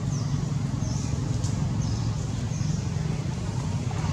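A steady low rumble runs underneath, with a short, high chirp repeating about once or twice a second.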